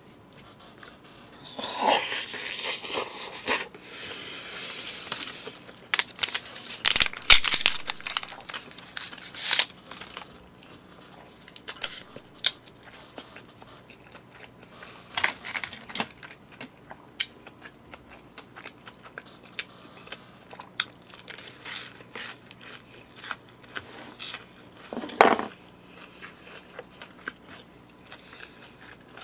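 Eating sounds: chewing, with irregular clicks of chopsticks against plastic takeout containers and plastic packaging crinkling now and then.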